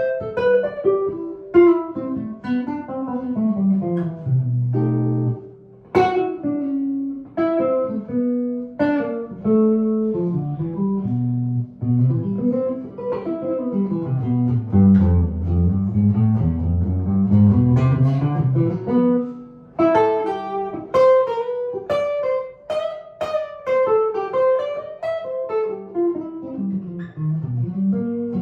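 1955 Gibson ES-295 hollowbody archtop electric guitar with P90 pickups, played as a solo instrument in single-note lines that climb and fall, mixed with chords.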